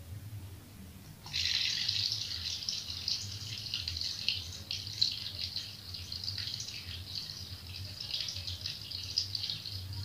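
Water from a small floating-faucet fountain pouring steadily down its central tube and splashing onto the pebbles in the basin; it sets in suddenly about a second in, over a low hum.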